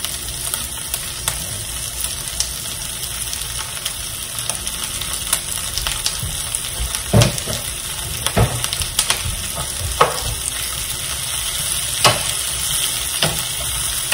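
Garlic, bell peppers and basil sizzling in oil in a frying pan, stirred with a wooden spoon that knocks against the pan several times in the second half.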